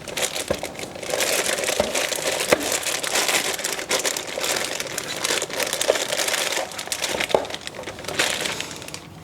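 Plastic packaging crinkling and rustling with many small crackles as a packed item is handled and unwrapped, easing off near the end.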